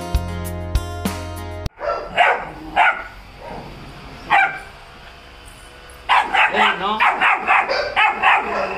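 Background music for the first couple of seconds, cut off sharply; then a Belgian Malinois puppy barks, first a few single barks, then a fast string of barks from about six seconds in. The barking is aimed at a man leaning in toward the puppy, a defensive, warning bark.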